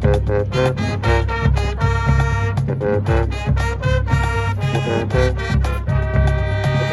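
High school marching band playing: the brass section plays short, punchy chords over a steady, driving drumline beat.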